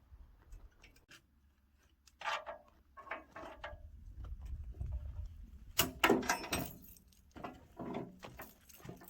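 Irregular metallic clanks and rattles in several short bursts, the loudest cluster a little past the middle, over a low rumble.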